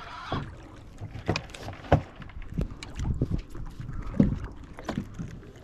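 Irregular clicks and knocks from fishing tackle and hands working on a small fishing boat while a hooked blue runner is reeled and hand-lined alongside, about one or two sharp knocks a second over a low rumble of wind on the microphone.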